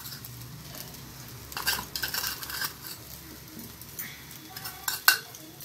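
Steel spoon clinking and scraping against a small steel bowl and the rim of an aluminium pressure cooker while salt is spooned in. The clinks come in short clusters, about a second and a half in and again near the end.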